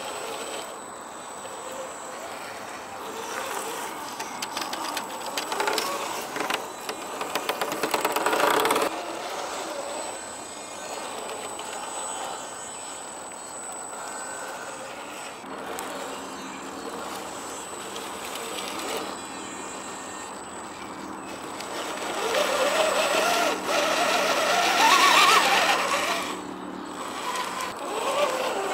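Scale RC rock crawler's brushed electric motor and gear drivetrain whining as it crawls over rock and dirt, the pitch rising and falling with the throttle, together with tyres scrabbling on the surface. The whine climbs highest and loudest a few seconds before the end, as the truck powers up a rock slab.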